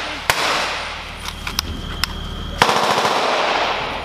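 Rapid automatic gunfire with sharp single shots. The firing slackens for about a second and a half, then a loud volley breaks out again about two and a half seconds in.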